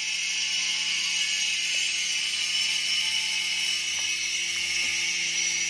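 Steady high hiss with a faint low hum underneath. It runs on unchanged with no clear events, only a few faint ticks.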